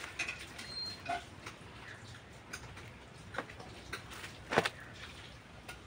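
Broiler hen pecking at bare dirt and dry leaves: scattered sharp taps and clicks at irregular intervals, the loudest about four and a half seconds in.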